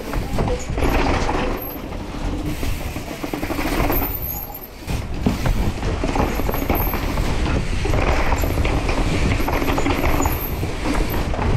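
Mountain bike rattling and clattering down concrete stairs, its tyres knocking over each step in quick repeated impacts while the chain and frame shake, with a heavy low rumble.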